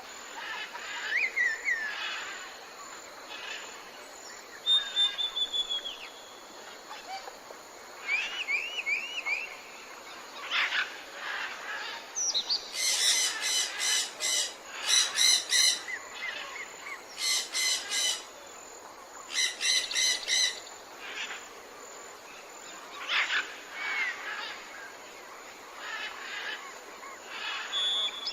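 Several wild birds singing and calling: short chirps and whistled trills over a steady background hiss. In the middle come four louder, harsh, rapidly pulsed calls, about two seconds apart.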